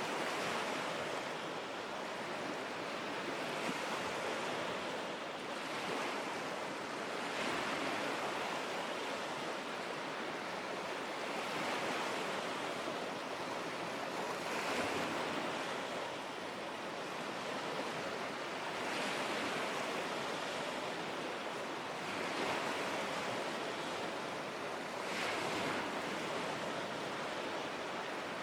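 Lake Huron waves washing onto the shore, a steady splashing hiss that swells with each wave every three to four seconds.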